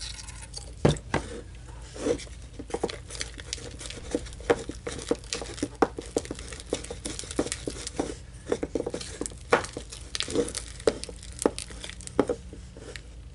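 Thick, sticky slime of shaving cream and contact solution being stirred in a bowl with a stick: irregular wet squelches, clicks and tearing sounds as the mixture pulls into strands. The slime is setting up super sticky.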